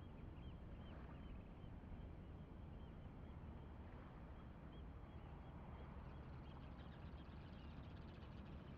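Faint steady low rumble with small birds chirping softly and repeatedly in the background.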